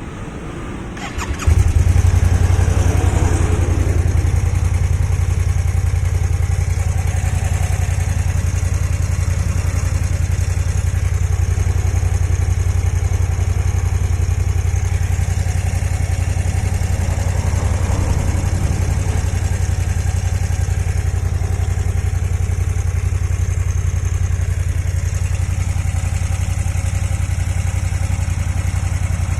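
Kymco AK550 maxi-scooter's 550 cc parallel-twin engine catching about a second and a half in, then idling steadily. The owner hears an abnormal engine noise in it whose cause is unknown.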